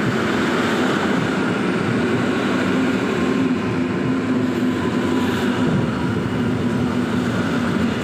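Two coupled EN57AKM electric multiple units roll past into the platform, making a steady rumble of wheels on rail. A faint high tone joins for a few seconds in the middle.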